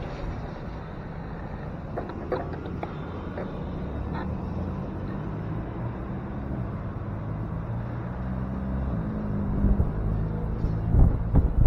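City street traffic at an intersection: a motor vehicle engine idling with a steady low hum and cars passing, with wind buffeting the microphone near the end.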